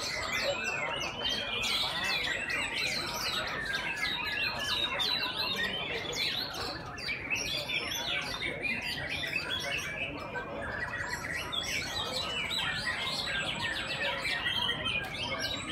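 Many caged white-rumped shamas (murai batu) singing at once in a contest: a dense, unbroken chorus of overlapping whistles, trills and chirps.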